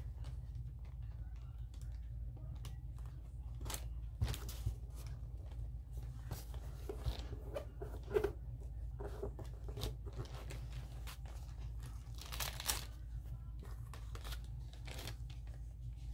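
Paper and rubber stamps being handled during stamping and collage work: scattered light rustles, taps and scrapes, with a longer scrape near the end, over a low steady hum.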